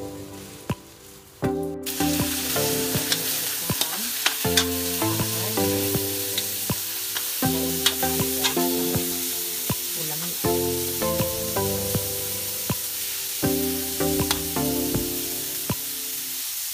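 Minced pork frying and sizzling in a hot wok as it is stirred, with the spatula scraping and tapping against the pan. The sizzle starts suddenly about two seconds in. Background music with short repeating melodic phrases plays over it.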